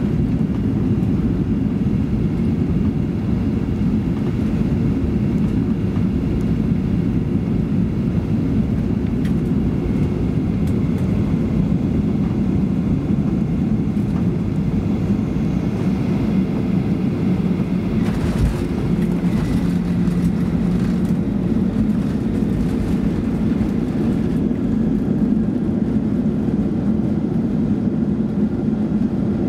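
Cabin noise of a Boeing 737-800 landing: a steady rush of engines and airflow. A little past halfway there is a short rattle and jolt as the wheels touch down, then the runway roll with the spoilers up, the hiss of the airflow fading near the end.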